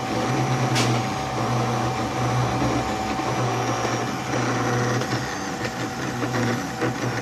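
A CNC machine's motors running moves under the controller, a low mechanical hum that stops and restarts every second or so as each move ends and the next begins, over a steady higher tone.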